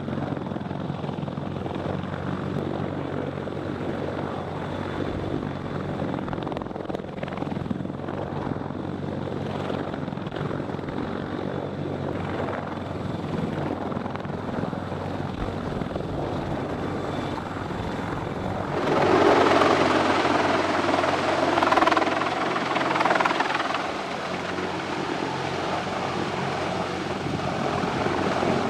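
Helicopter running with a steady, low drone. About two-thirds of the way through, a louder rushing noise swells for a few seconds, then eases back.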